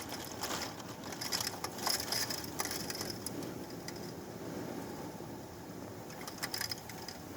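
Hurricane wind and rain: a steady rushing noise that swells in gusts, with scattered sharp ticks and clicks over it.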